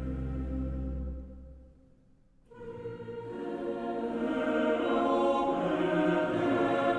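Background music with a choir singing sustained chords, fading out about two seconds in and building back up.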